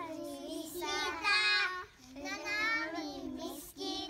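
A group of young children singing together without instruments, with a short break between phrases about halfway through.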